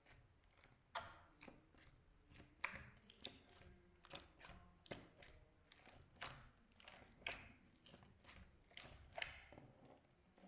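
Slime being squeezed and handled by hand, giving irregular sticky clicks and pops, about two or three a second.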